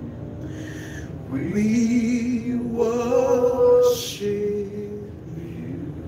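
Slow worship singing: a single voice slides up into long held notes with vibrato, loudest in the middle, over a steady sustained tone.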